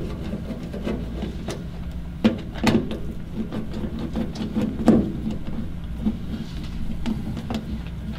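Screwdriver turning out the Phillips head screws from a boiler's plastic front cover: small scattered clicks with a few sharper knocks of plastic, the loudest about five seconds in, over a steady low hum.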